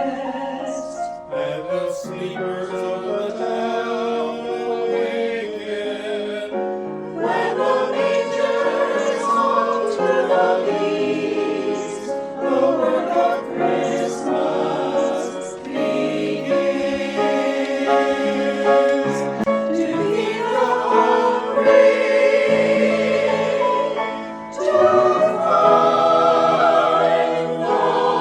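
Choir singing a choral anthem in sustained chords, growing louder about seven seconds in and swelling again after a brief dip near the end.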